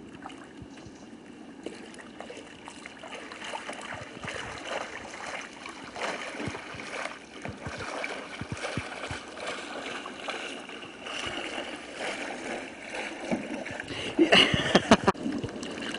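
Kayak paddle blade working the water in repeated static draw strokes beside the boat: gurgling and small irregular splashes. A louder burst of sound comes near the end.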